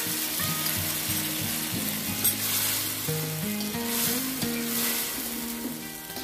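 Fried Japanese tofu and a sauce of oyster sauce and sweet soy sizzling in hot oil in a wok, stirred with a metal slotted spatula scraping the pan, over background music.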